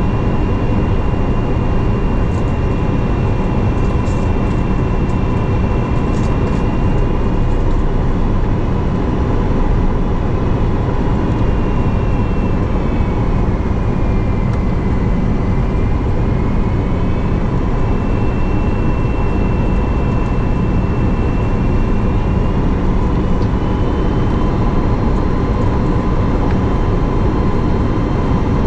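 Airbus A330-300 cabin noise in flight on approach: a steady loud rush of airflow and engine hum. Over it runs a high engine whine that sinks in pitch near the middle and climbs back afterwards, as the thrust changes.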